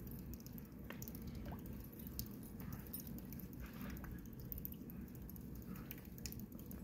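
Faint soft crunches, scuffs and scattered clicks as two dogs tug at a leash in the snow, over a low steady rumble.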